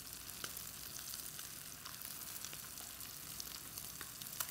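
Tilapia fillets searing in a hot skillet: a steady sizzle with scattered crackling pops.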